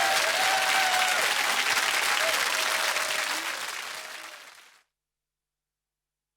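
Studio audience applauding, with a few held tones beneath it at first; the applause fades out and stops just under five seconds in.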